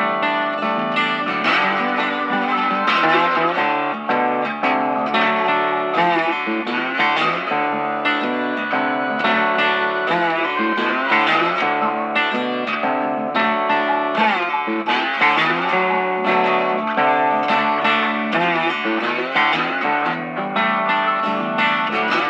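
Background music led by guitar, with plucked and distorted electric guitar notes.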